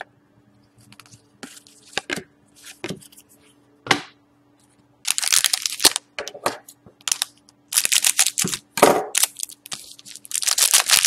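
Foil trading-card pack wrapper being torn open and crinkled while the cards are handled. Scattered soft rustles come first, then louder crinkling and tearing from about five seconds in.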